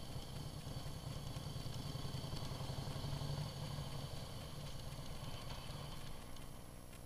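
Harley-Davidson CVO Breakout's V-twin engine running at low speed as the bike rolls along slowly, a steady low rumble that drops in level shortly before the end.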